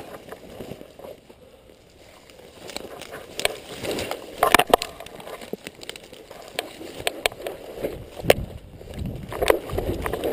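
Dry grass and weeds rustling and crackling as a person pushes through them, with a string of sharp, irregular clicks and snaps; the loudest come about four and a half seconds in and about eight seconds in.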